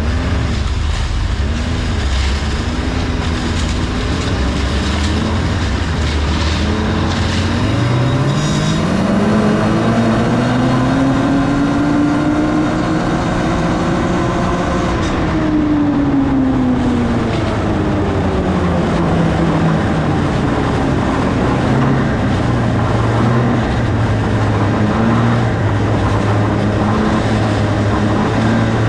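A vehicle engine running hard, climbing steadily in pitch for several seconds, then easing back down and settling, over a steady rushing noise.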